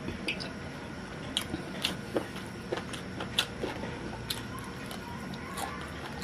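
A person chewing and biting into roasted chicken, with irregular wet mouth clicks and smacks over steady background noise.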